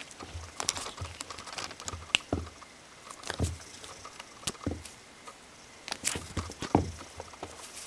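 Kittens scrabbling and pouncing on carpet and tugging the camera strap: irregular soft thumps, scuffles and clicks of paws and of the jostled camera.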